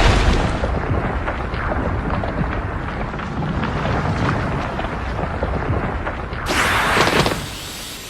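Anime-style explosion sound effect: a crackling rumble that slowly dies away, then a short bright whooshing burst about six and a half seconds in.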